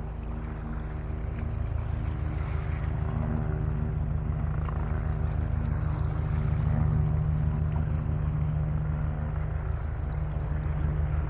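Boat engine running steadily: a low, pulsing drone with a faint wash of wind and water over it.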